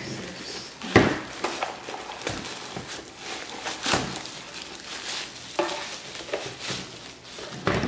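Plastic packaging bag rustling and crinkling as it is handled and opened, with a few sharp knocks and clicks of the box and the bubble machine inside it, the loudest about a second in.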